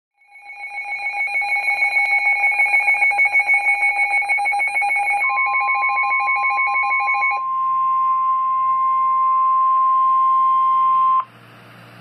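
A weather alert radio's alarm: a fast-pulsing two-tone beeping that stops after about seven seconds, overlapped from about five seconds in by the NOAA Weather Radio warning alarm tone, one steady high tone that cuts off sharply about eleven seconds in. This signals an incoming warning.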